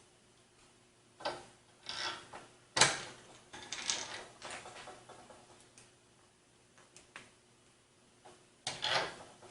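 Hands working parts inside a PC case: scattered clicks and knocks of plastic and metal parts with rubbing between them, the sharpest knock about three seconds in, a quiet pause, then more handling near the end.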